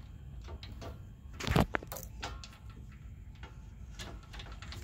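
Light clicks and knocks of a replacement AC condenser being shifted by hand to line its rubber-bushed mounting brackets up with the bolts, with one louder knock about a second and a half in.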